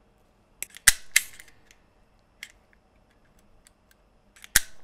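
Flush cutters snipping through a solid-core jumper wire with a sharp snap about a second in, then near the end a hand wire stripper clamping and snapping open as it pulls the insulation off the wire's end.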